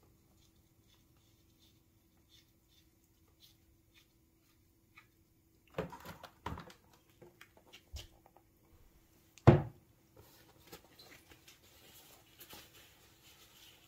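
Transmission fluid draining from a VW IRS transaxle through a grate into a bucket: clicks and knocks as the drain plug is handled, one sharp loud metal-on-metal knock past the middle, then a faint trickling patter of the fluid.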